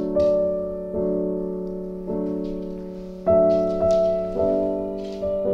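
Background music: slow piano chords, a new chord struck about once a second and each fading away.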